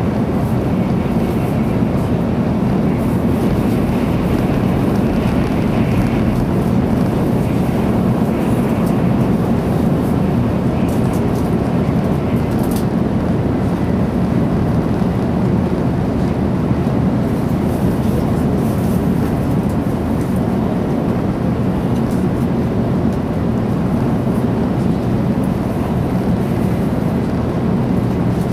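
Steady running noise of a 300 Series Shinkansen at speed, heard inside the passenger cabin: a constant low rumble and rush from the wheels, track and air.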